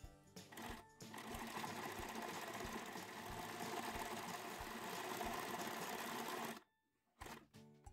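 Electric sewing machine running steadily, stitching through sock fabric; it starts about a second in and stops suddenly near the end.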